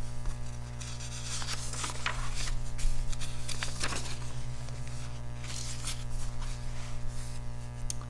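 Sketchbook paper rustling as a page is lifted and turned over, a run of soft scrapes and crinkles, over a steady electrical hum.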